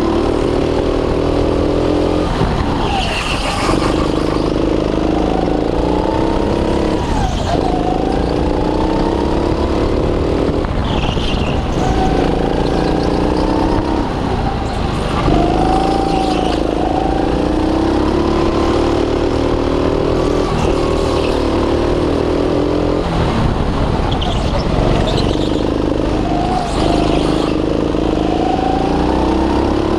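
Go-kart engine heard onboard while driving laps: the revs climb steadily along each straight, then drop sharply off the throttle into each corner and pick up again, every few seconds.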